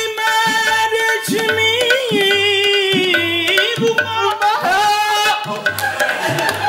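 A man sings long, drawn-out notes in qawwali style over a steady hand-drum beat of tabla or dholak.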